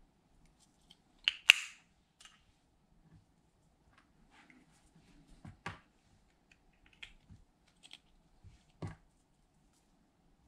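Sharp plastic clicks and taps from an eyeshadow compact and the tool scraping powder out of it, the loudest about one and a half seconds in, with faint scraping between.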